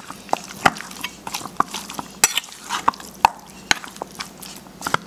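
Metal spoon stirring marinated pork rib chunks in a stainless steel bowl, mixing in jerk seasoning. It gives irregular clinks and scrapes as the spoon knocks against the bowl.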